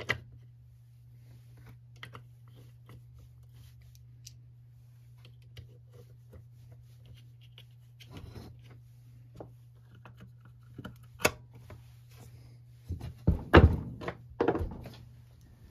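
Plastic air filter housing, foam filter and cover of a Homelite Vac Attack II leaf blower being fitted by hand: scattered light clicks and taps, then a cluster of louder knocks and thunks near the end as the cover is snapped on.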